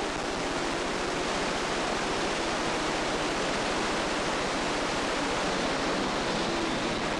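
A pack of dirt modified race cars running past together, their V8 engines blending into one dense, steady din with no letup.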